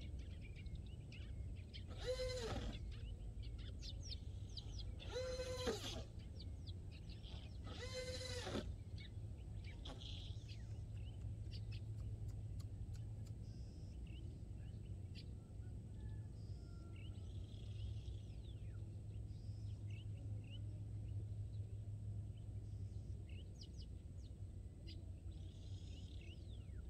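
An animal calling three times, about three seconds apart, each call a short pitched cry under a second long, with faint bird chirps throughout.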